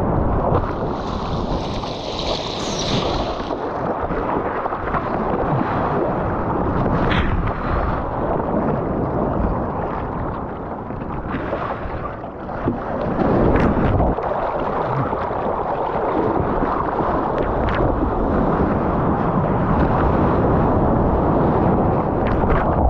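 Water rushing and splashing around a surfboard riding and paddling through small waves, a steady churning noise picked up by a GoPro action camera's microphone close to the water, with a brief higher hiss of spray about two seconds in.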